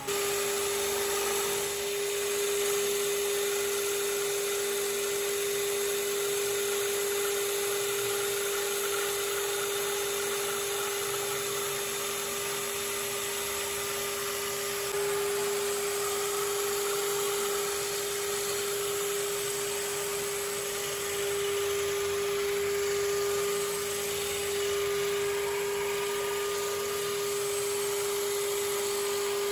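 Electric hand drill running at a steady speed as the drive of a homemade wood lathe, a constant motor hum, with sandpaper rubbing against the spinning wooden stick as it is sanded smooth.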